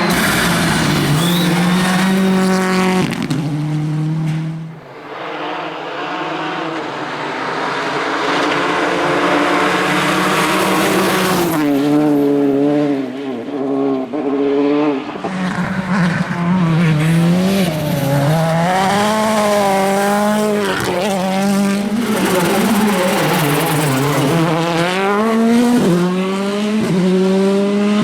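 Rally car engines at full throttle, the pitch climbing and dropping with gear changes and throttle lifts. About a quarter of the way in comes a stretch of rushing noise with little engine pitch, and in the second half the revs swing quickly up and down, as through a series of corners.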